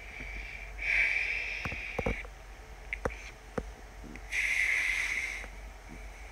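A boy breathing through his nose with his fist pressed against his mouth: two long breaths, with a few small clicks between them.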